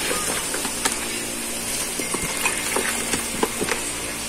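Water sloshing and dripping as raw duck pieces are lifted by hand out of a plastic basin of water, with small scattered clicks and splashes over a steady background noise.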